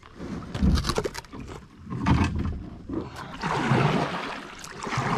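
Kayak paddle strokes splashing and pulling through the creek water, about one stroke every second and a half, each with a low rush of water.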